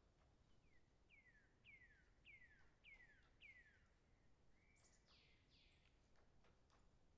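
A songbird singing faintly: a run of about six clear notes, each sliding downward, roughly two a second, ending in a short, higher flourish just after the middle.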